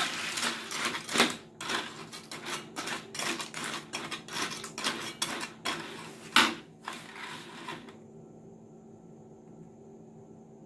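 A metal spoon scraping and clinking against a metal wok while stirring and turning crackers in oil, a quick irregular run of clicks and scrapes. The stirring stops about eight seconds in, leaving a faint steady hum.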